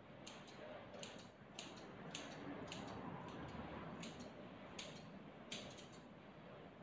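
Grooming scissors snipping through a small dog's matted coat: a dozen or so short, sharp snips at an uneven pace, often in quick pairs.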